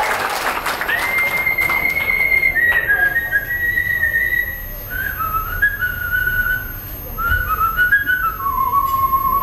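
Brief applause, then a woman whistling a melody by mouth: a long high note about a second in, then a run of short stepping notes that settles onto a lower held note near the end.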